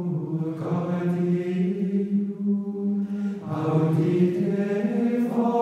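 Background music of voices chanting in long held notes, moving to a new note about three and a half seconds in.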